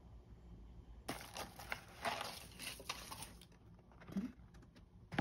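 Kraft honeycomb packing paper crinkling and rustling as a boxed product is unwrapped by hand. A run of irregular crackles starts about a second in and thins to a few scattered ticks after about three and a half seconds.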